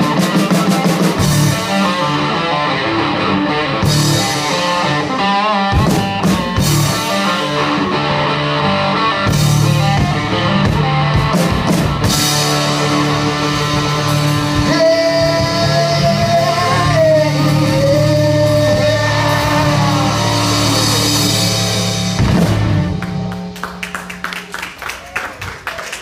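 Live band (acoustic and electric guitars, bass guitar, drum kit) playing the closing section of a song, with singing. Near the end the band stops and scattered hand clapping begins.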